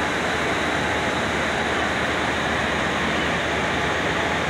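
Indian Railways electric locomotive moving slowly past: a steady rushing noise with a faint whine running through it.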